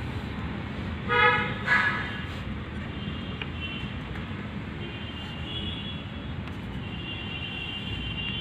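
TVS Apache motorcycle engine running steadily, with the abnormal noise the owner traces to a faulty clutch. A vehicle horn toots twice, briefly, about a second in.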